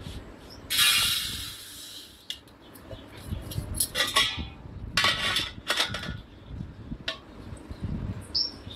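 A metal spoon scraping and knocking against the inside of a pressure cooker as thick jackfruit curry is stirred. There are several scrapes, the longest and loudest about a second in.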